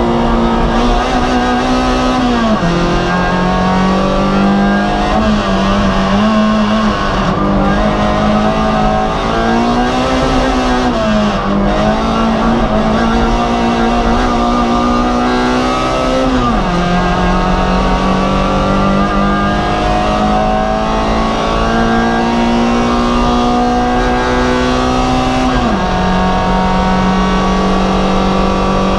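Race car engine heard from onboard, running hard under load with its pitch climbing slowly, then dropping suddenly at upshifts about three seconds in, a little past halfway and near the end. The pitch also dips briefly a few times in between, typical of short lifts off the throttle.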